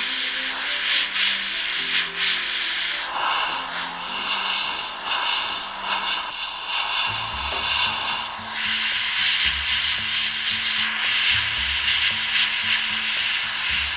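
Airbrush spraying acrylic paint: an uneven compressed-air hiss that swells and drops as the trigger is worked for fine lines. Faint background music plays underneath.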